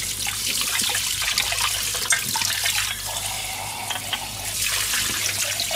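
Kitchen faucet running into a stainless steel sink while dishes are rinsed by hand under the stream, with short clinks of the dishes.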